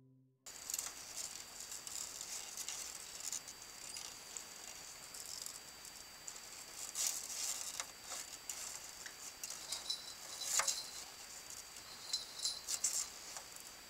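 Faint, irregular small clicks and scratches from baby turtles moving and clawing on the plastic floor of a feeding container while one worries an earthworm in its jaws. A faint steady high whine runs underneath.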